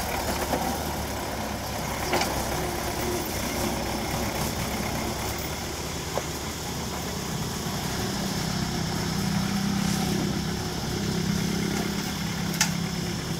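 Farm tractor's diesel engine running steadily under load as it hauls a heavily loaded cassava trailer along a dirt track, its low hum growing stronger in the second half. A couple of brief sharp clicks are heard along the way.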